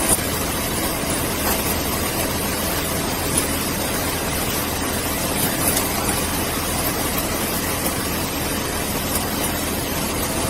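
Steady rumble and hiss of an idling car engine, with a few faint clicks and knocks from objects being handled.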